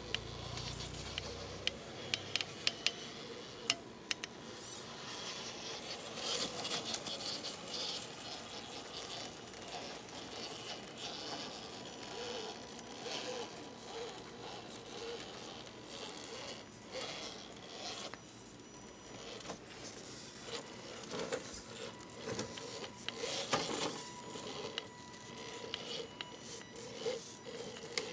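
Radio-controlled rock crawler's electric motor and gear drivetrain whirring on and off as it creeps over rocks, with tyres scraping and scattered sharp clicks and knocks against stone.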